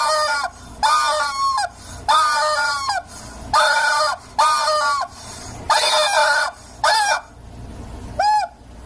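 Yellow rubber chicken squeeze toy squawking, about eight squawks in a row, each under a second, the last one short.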